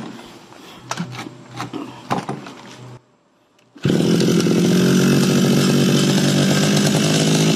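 A few clicks and knocks of handling, then after a short break the Stihl FR 3000 backpack brush cutter's two-stroke engine is running steadily from a bit under four seconds in. The engine is running again after nine months' storage, with its spark plug cleaned and its clogged exhaust cleared.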